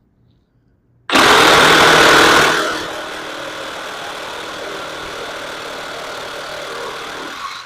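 Milwaukee M18 Fuel 2821-20 cordless reciprocating saw with a wood blade cutting through a 4x4. It starts suddenly about a second in, is loudest for the first second and a half, then runs steadier and quieter until it stops abruptly near the end.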